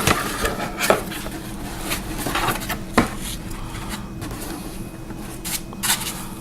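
Handling noise of a flashlight and its packaging: scattered light knocks and clicks with some rubbing, the sharpest knock about three seconds in.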